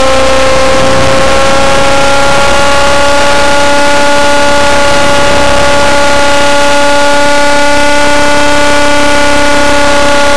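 RC helicopter engine and rotor heard from a camera mounted on the helicopter: a loud, steady whine whose pitch rises slightly over the first couple of seconds and then holds.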